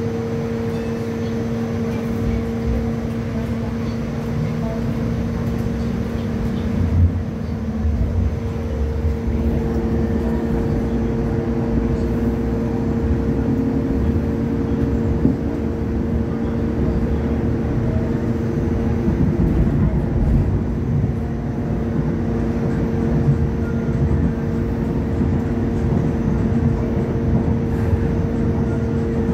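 Hong Kong Light Rail Phase III light rail vehicle running, heard from inside the car: a steady electric hum of the traction equipment over the rumble of wheels on track. A jolt comes about seven seconds in, and the rumble grows heavier after that as the car gathers speed.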